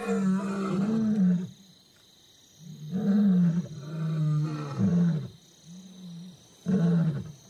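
Male African lion roaring: a bout of deep, loud roars, the first ones long and the last ones shorter and more spaced out.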